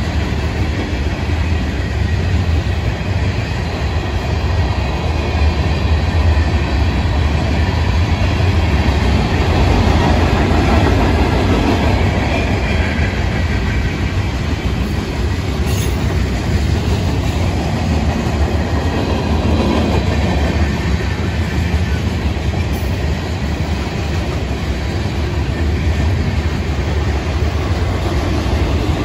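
Florida East Coast Railway freight cars rolling past, a steady rumble of steel wheels on the rails that swells slightly for a few seconds around the middle.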